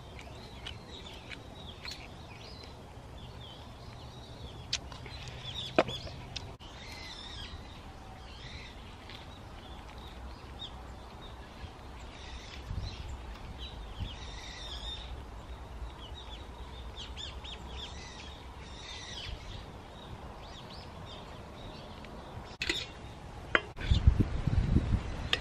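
Birds calling repeatedly, in short scattered calls, over a low steady rumble. Near the end, a few knocks and clatter of metal cookware being handled.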